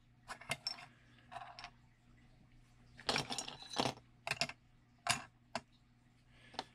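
Unpacking the Grinderino quad frame kit: its small hard parts click and clatter against each other and the packaging, in an irregular scatter of light clicks and short rattles.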